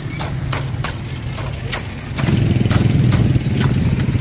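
A small engine idling close by with a steady low hum that grows louder about two seconds in. A quick run of sharp clicks, roughly three a second, sounds over it.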